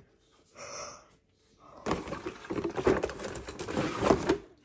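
Close handling noise: a sheet of arabesque backsplash tile rubbed and scraped right by the microphone, a scratchy rustle with small clicks lasting about two and a half seconds, starting about two seconds in. A short soft hiss, like a breath, comes just before.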